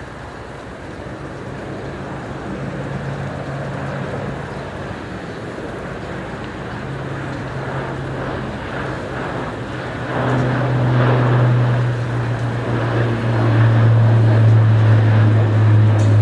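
Airbus A400M's four TP400 turboprop engines and eight-bladed propellers droning as the transport flies low overhead. A low propeller hum over a wide rushing roar grows steadily louder and drops in pitch in the second half as the aircraft passes.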